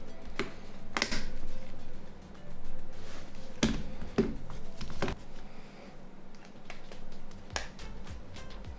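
Sharp plastic clicks and snaps, about six spread out, as a Nokia 3220's plastic body shell and covers are pressed and snapped into place, with soft background music.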